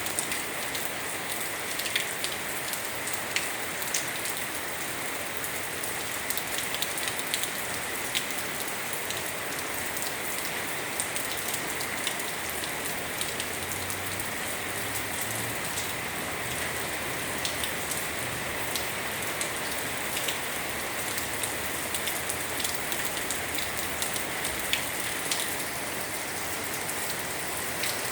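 Rain falling fairly heavily, a steady hiss with many individual drops ticking and splashing on a surface.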